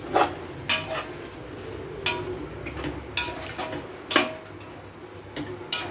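A metal spoon or ladle stirring in a metal cooking pot, knocking and scraping against its sides about nine times at an uneven pace, some strokes leaving a short metallic ring.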